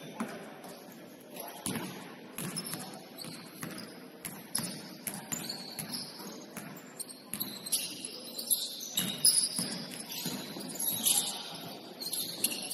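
Basketball game play on an indoor court: the ball bouncing, with scattered knocks and short high squeaks.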